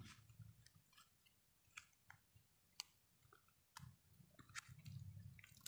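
Faint crinkling and scattered clicks of a small plastic sachet being handled and torn open.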